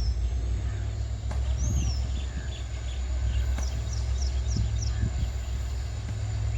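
Low, steady rumble of approaching EMD diesel locomotives, with birds chirping over it: two arched calls near the start and a quick run of high chirps about four seconds in.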